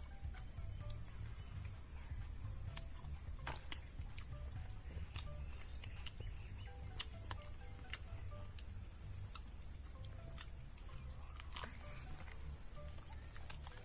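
Crickets chirring steadily in one high-pitched drone, over a low rumble, with a few light clicks scattered through.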